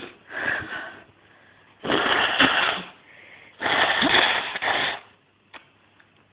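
A person's pepper-irritated nose: a short burst and a half-second blast, then two long, loud, noisy blasts of air through the nose of about a second each, with a faint breath between them and a small click near the end.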